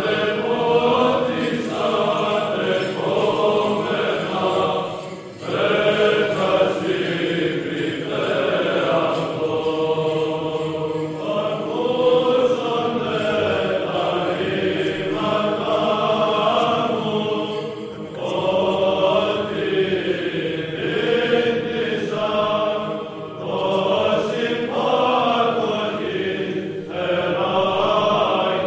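Orthodox church chant sung by a choir of voices, in long phrases with short breaks between them.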